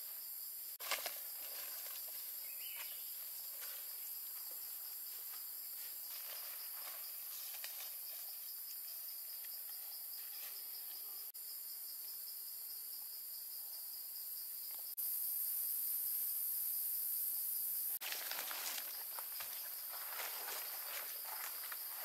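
Steady high-pitched drone of rainforest insects, with footsteps on a leaf-strewn dirt trail that are clearest in the last few seconds. The drone jumps louder for about three seconds past the middle.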